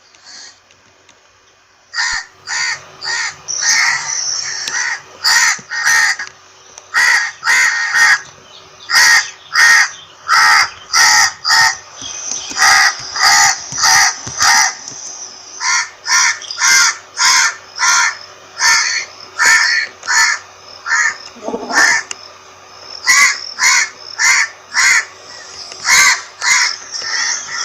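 Crows cawing: a long run of short, harsh caws, about two a second, starting about two seconds in.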